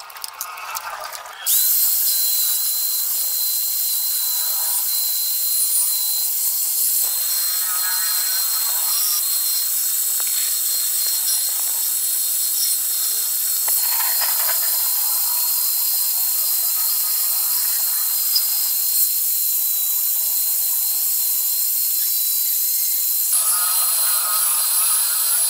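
Electric motor of a homemade lathe starting about a second and a half in and running at a loud, steady high whine as a wooden wheel spins in its drill chuck. Sandpaper held against the spinning wheel adds scratchy rasping now and then.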